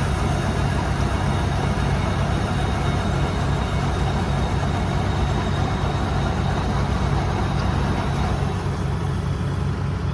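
Engine of a rice-harvesting machine running steadily: a constant low drone with a continuous mechanical rush over it.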